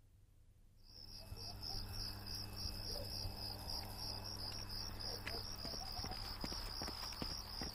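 Cricket chirping in a rapid, steady rhythm over a low steady hum. The chirping starts about a second in.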